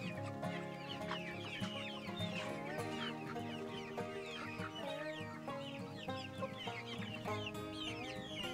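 A flock of Rhode Island Red and black hens clucking and calling without a break, many short falling calls overlapping, with background music underneath.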